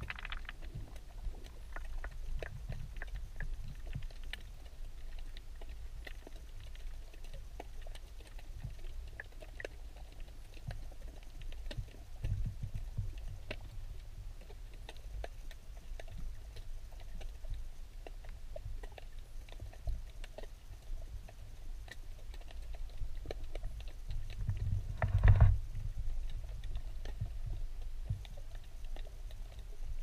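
Underwater ambience picked up by the camera: a steady low rumble with many faint scattered clicks and crackles, and one louder, muffled burst of noise late on.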